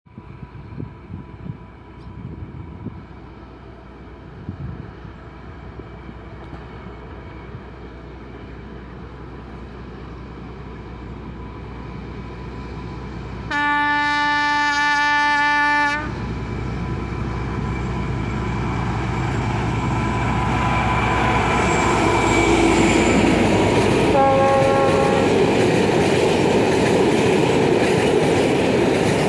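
Diesel locomotive 647-004 hauling a freight train, approaching and growing steadily louder, with one long horn blast about halfway through and a shorter, higher horn note near the end as it comes level. The freight wagons then roll past with wheel clatter and a loud rushing noise.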